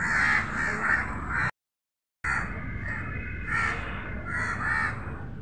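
Crows cawing over and over, several caws a second, broken by a brief gap of total silence about a second and a half in.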